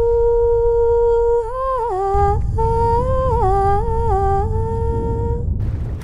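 A wordless high voice singing 'ooh': one long held note, then a slow melody with small slides between notes, stopping shortly before the end. A low rumble runs underneath, growing stronger about two seconds in.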